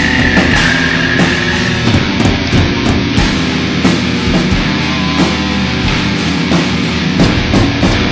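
Lo-fi brutal death metal: dense, loud, distorted band music with rapid sharp hits. A sustained high tone holds over the first two seconds and then drops away.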